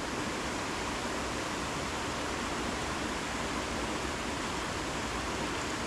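Steady rush of whitewater in a canyon creek, an even, unbroken wash of falling and churning water.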